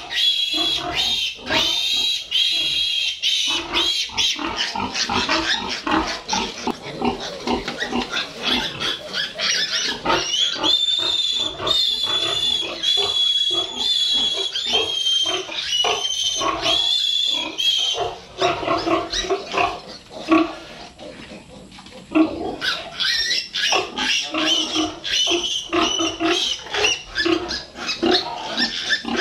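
Piglets squealing loudly and continuously while being held up and restrained for iron injections. The high, wavering squeals ease off briefly about two-thirds of the way through, then start again.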